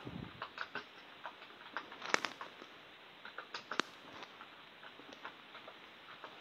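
Computer keyboard keys and mouse buttons clicking: a scattering of light, irregular clicks, with two sharper clicks about two seconds and nearly four seconds in.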